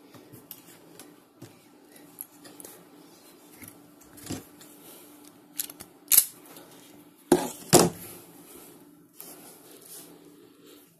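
Hands handling thin hookup wire: quiet rustling, then several sharp snips and clicks, the loudest about six and again about seven and a half seconds in, over a low steady hum.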